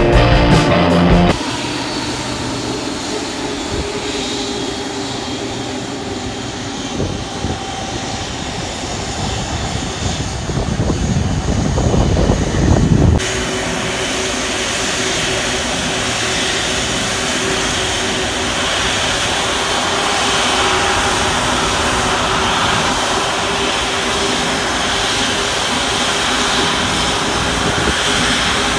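Airbus A330-343's Rolls-Royce Trent 700 turbofans at taxi power: a steady jet whine over a low hum as the airliner taxis. Rock music plays for about the first second, then a rushing noise grows louder until an abrupt change about 13 seconds in.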